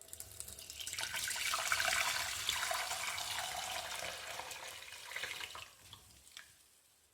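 Hot ginger tea being poured through a strainer: a steady stream of liquid that builds in the first second, tapers off after about five seconds, and ends in a few drips.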